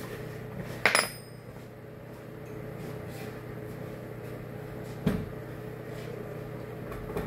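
A sharp metal clink with a brief ringing about a second in, then a single dull knock near five seconds, over a steady low hum.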